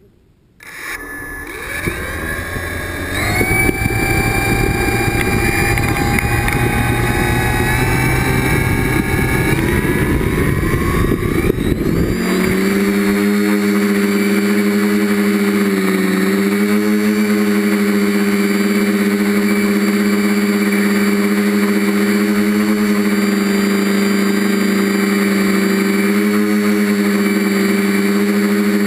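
TBS Discovery quadcopter's DJI electric motors and propellers, heard from the GoPro on its frame. The motors spin up with a rising whine about a second in and climb slowly in pitch. At about twelve seconds the craft lifts off and settles into a steady hovering hum with slight wobbles in pitch.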